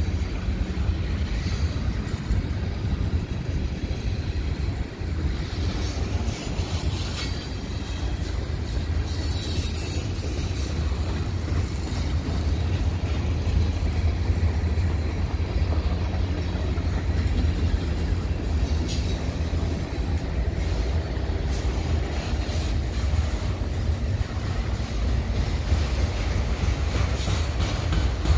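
Freight cars rolling past on a sharp curve: a steady heavy rumble of steel wheels on rail, with high wheel squeal from the curve flaring up several times.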